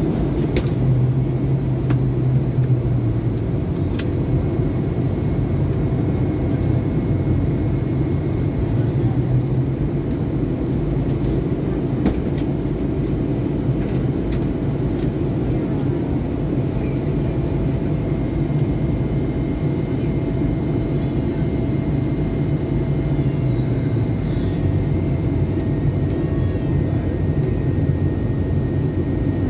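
Steady engine and airflow noise of a jet airliner heard from inside the passenger cabin during the descent before landing: a dense, even rumble with a few faint steady engine tones running through it.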